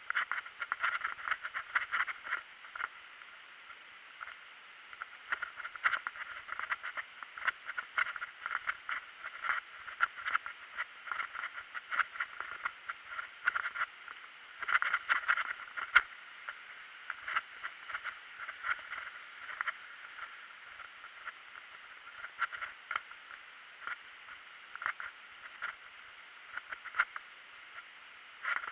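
Mountain bike rattling and clattering over a rough, wet trail surface: an irregular run of ticks, knocks and crunches from the frame, chain and tyres, busiest in the first half and thinning to scattered clicks later.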